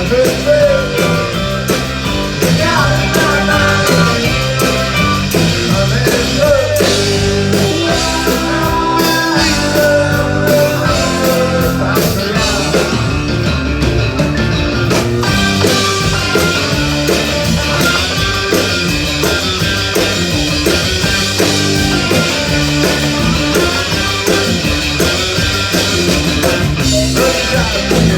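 Live rock band playing a mostly instrumental passage with drums and guitar and a steady beat.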